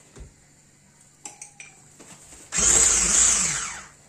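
Electric hand mixer's beaters knocking lightly against a ceramic bowl a few times. Then the mixer runs in a short loud burst of about a second in the cake batter and winds down.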